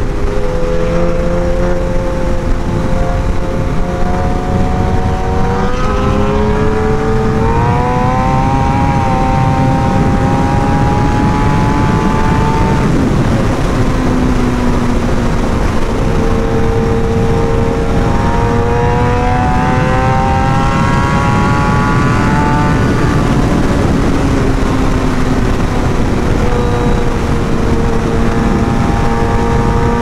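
Suzuki GSX-R 1000 inline-four engine running hard at highway speed, its note climbing twice as the bike accelerates and dropping back in between, under heavy wind rush on the microphone.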